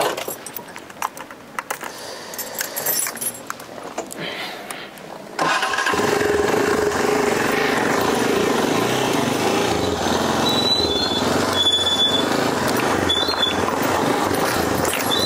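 Motorcycle engine and street traffic. The sound cuts in suddenly a few seconds in and runs steady and loud after quieter scuffs and clicks, with a few short high beeps near the end.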